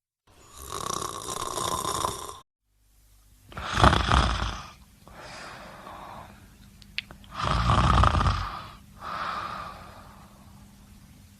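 A person snoring, from two recordings spliced together: one long snore, a brief dropout to silence, then two louder snores about four seconds apart, each followed by a softer breath out.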